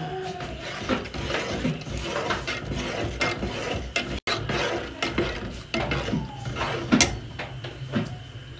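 Metal spoon stirring a thin milky mixture in a stainless steel pot, with irregular scraping and clinking against the bottom and sides of the pot.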